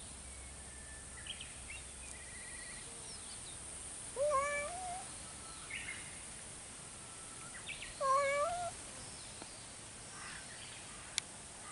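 A cat meowing twice, about four seconds apart, each a drawn-out meow under a second long with a wavering pitch.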